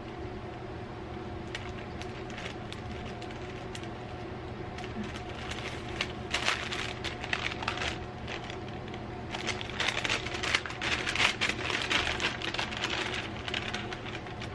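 An advent calendar's wrapping being crinkled and torn open by hand: two spells of dense crackling, about five seconds in and again from about ten seconds, over a steady low hum.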